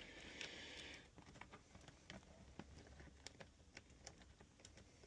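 Near silence: a faint hiss in the first second, then scattered faint small clicks and ticks.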